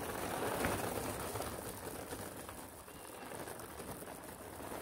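Whiskas dry cat food kibble pouring from its bag into a smaller plastic bag, making a dense stream of small rattling clicks that eases off partway through.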